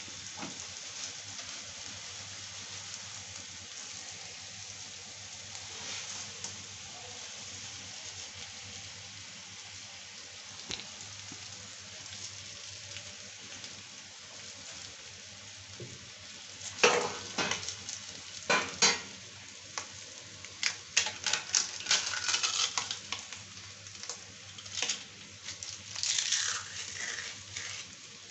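Oil sizzling steadily in an iron kadhai with fried garlic and green chillies. From a little past halfway, a metal spatula clinks and scrapes against the pan in quick clatters as dry poha and peanuts are stirred in.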